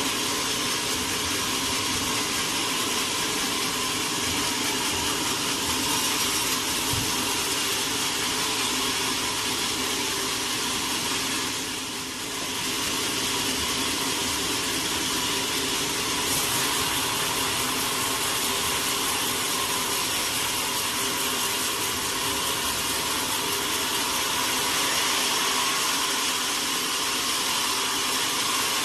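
Sawmill machinery running steadily, a continuous mechanical whir with a brief dip in level about twelve seconds in.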